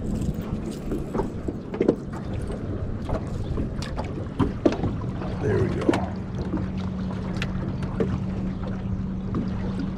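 Evinrude 25 outboard motor running steadily, a low hum that grows a little stronger from about halfway, with scattered light knocks and clicks from tackle being handled in the aluminum boat and some wind on the microphone.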